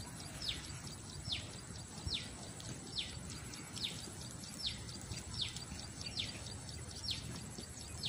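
A bird calling over and over, each call a short whistle falling in pitch, about one every 0.8 seconds, over a steady low background noise.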